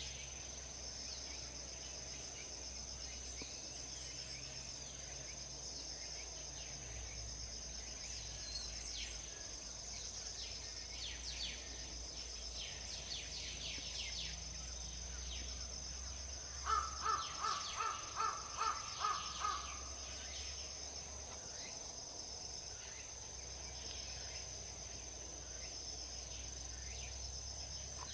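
A crow caws about seven times in quick succession roughly two-thirds of the way through, over outdoor ambience of small birds chirping and a steady high hiss.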